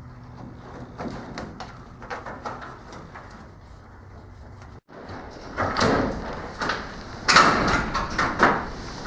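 Knocks, clatter and scraping of parts and tools being handled during assembly work, a few light clicks at first, then louder and busier after a brief dropout about halfway through.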